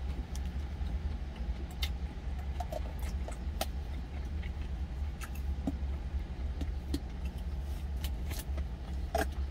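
Steady low hum of an idling truck engine heard from inside the cab, with scattered light clicks and clinks as a stainless-steel lunch container is handled.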